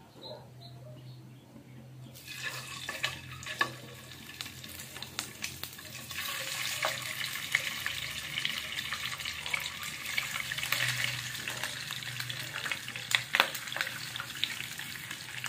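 Pork steak slices frying in hot oil in a pan: the sizzle begins about two seconds in as the meat goes into the oil, grows louder around six seconds, and carries sharp pops and spits throughout.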